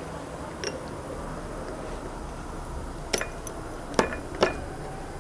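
Light clinks of porcelain tableware and cutlery: a faint one early, then three sharper clinks in the second half, over a steady low background hush.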